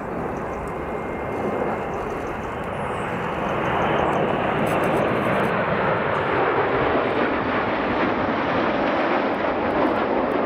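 Jet engine noise from a formation of seven BAE Hawk jet trainers, with their Rolls-Royce Turbomeca Adour turbofans: a steady, dense rushing that grows louder about four seconds in and stays loud.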